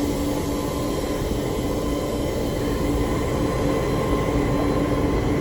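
Pacific National 81 class diesel-electric locomotives, EMD two-stroke V16 engines, idling at a standstill: a steady low engine noise with a constant hum.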